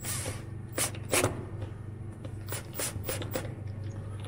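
Cordless drill/driver driving a self-tapping wood screw through a cut wine cork into the ergometer's steel shaft, in several short bursts.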